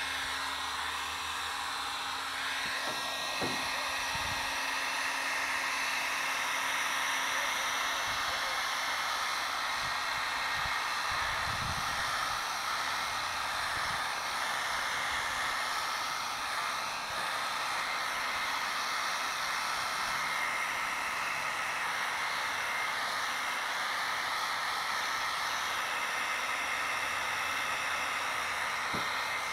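Heat gun running steadily, blowing hot air onto the bonded front safety glass of a CRT to soften the bond and loosen the glass. A few light knocks come in the first dozen seconds.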